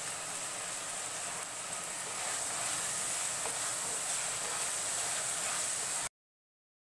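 Onions, green chillies, garlic and ginger sizzling in hot coconut oil in a clay pot as they are stirred with a spoon, a steady hiss. The sound cuts off abruptly to dead silence about six seconds in.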